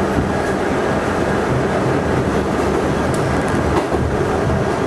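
R68 subway car running at speed, heard from inside the car: a steady rumble of wheels on the track with a few faint clicks.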